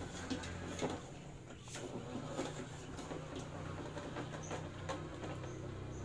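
Homemade four-wheel-drive remote-control lawn mower driving over rough dirt: steady hum of its 12-volt electric motors, with scattered knocks and rattles from the chassis.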